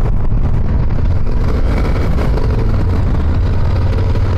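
Yamaha adventure motorcycle engine running steadily, with wind buffeting the microphone.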